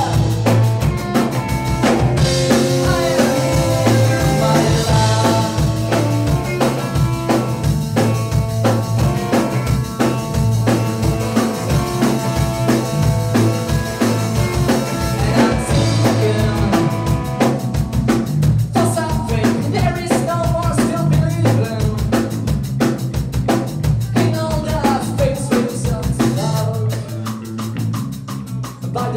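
Live rock band playing loudly: electric guitar, electric bass and drum kit together, with a steady driving beat.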